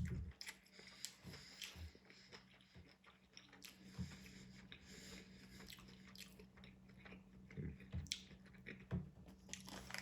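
A person chewing and biting into a sub sandwich close to the microphone, quiet, with scattered soft mouth clicks.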